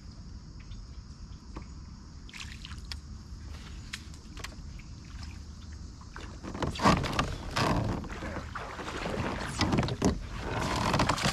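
A hooked fish thrashing and splashing at the surface beside a kayak as it is reeled in. It is quiet with a few faint clicks at first, then from about six and a half seconds in comes a run of irregular splashes that goes on to the end.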